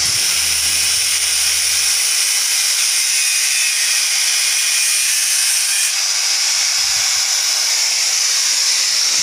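A steady high-pitched hiss and whine. A low hum under it stops about two seconds in, and a few faint knocks come near the seventh second.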